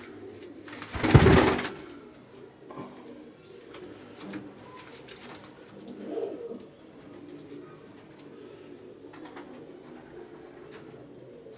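Several domestic pigeons cooing continuously, a low steady murmur, with one louder coo a little past the middle. A loud, brief rustle about a second in stands out above the cooing.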